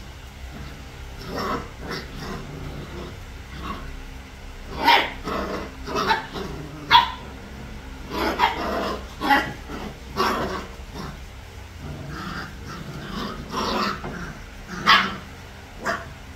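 Three-week-old puppies playing, giving short, high-pitched yips and barks scattered throughout, with a few louder ones near the middle and near the end.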